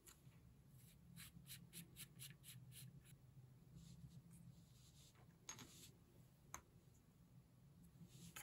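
Faint handling sounds of a Montblanc 322 fountain pen's cap and clip being taken apart by hand: a quick run of about eight light clicks, then two single clicks a few seconds later.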